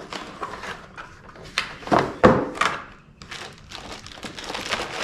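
Cardboard box and packing being handled: a few dull thuds and knocks, clustered about two seconds in, with rustling between them.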